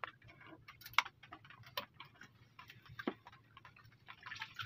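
Faint, irregular clicks and light taps, the sharpest about a second in, over a low steady hum.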